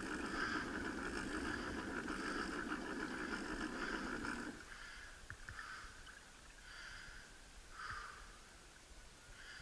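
A dog breathing and sniffing close by, in short puffs about once a second. A steadier rushing noise underneath stops suddenly about halfway through.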